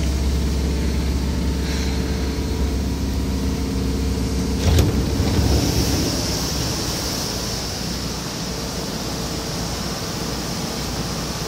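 Seibu 2000 series electric train standing at a station with its equipment running: a steady low hum, a single sharp knock about five seconds in, then a steady high hiss as the hum fades away.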